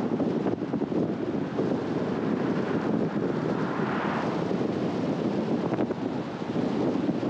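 Steady road and wind noise from a car driving, with wind buffeting the microphone and a brief swell of higher hiss about four seconds in.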